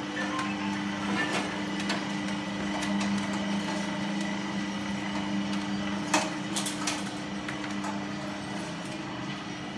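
Electric motor and worm-gear reducer of a coffee-bean roasting machine running with a steady hum while driving the roasting drum by chain. Scattered clicks and knocks sound over it, the loudest a sharp knock about six seconds in.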